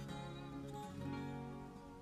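Background music: acoustic guitar playing a gentle melody of plucked notes.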